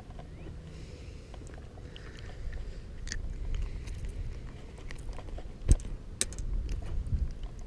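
Irregular small clicks and knocks from fishing tackle being handled while a small largemouth bass is landed, with one sharp knock a little past two thirds of the way through, over low wind rumble on the microphone.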